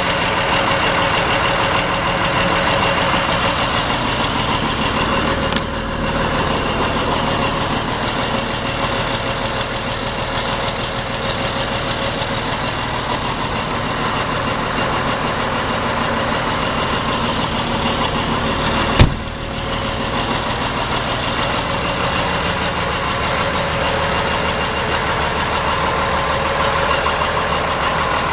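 Diesel engine of a 1988 Kenworth-badged Volkswagen 13-210 truck idling steadily, with one sharp knock about two-thirds of the way through.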